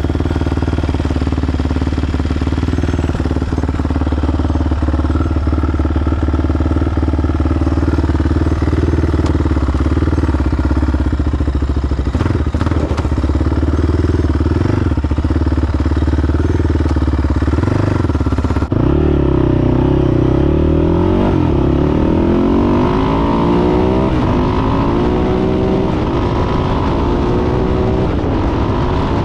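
Yamaha Raptor 660R ATV's single-cylinder four-stroke engine, built with 11-to-1 compression and a stage 1 hot cam, running at a steady speed. About two-thirds of the way through it cuts to the engine revving up and down repeatedly as the quad is ridden.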